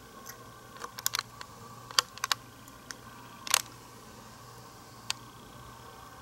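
Handling noise: a few scattered sharp clicks and taps over a faint steady hum.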